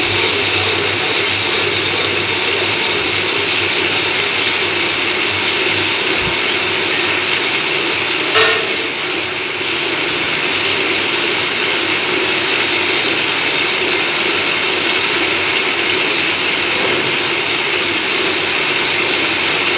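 Metal lathe running, its chuck spinning a workpiece at speed with the cutting tool at the work: a steady mechanical noise, with one brief louder knock about eight seconds in.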